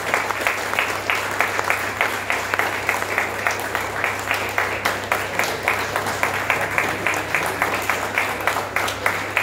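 A small group of people applauding, their hand claps falling into a fairly even rhythm of a few claps a second.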